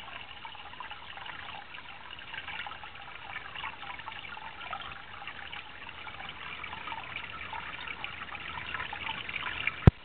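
Water trickling and splashing in a basement sump pit, an uneven, flickering patter. Just before the end comes a single sharp click, and the trickling cuts off.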